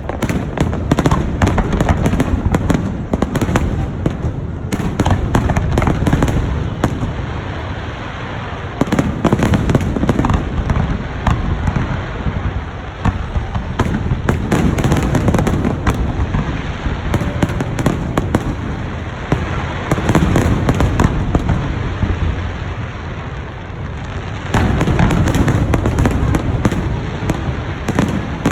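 Aerial fireworks going off in rapid, dense volleys of bangs and crackles, with deep booms, easing briefly a few times before picking up again.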